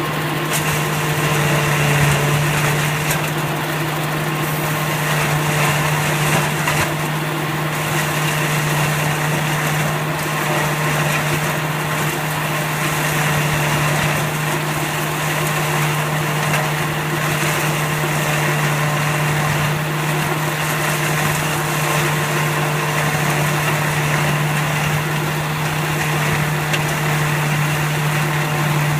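Automatic silage baler machine running steadily, a constant mechanical drone with a strong low hum.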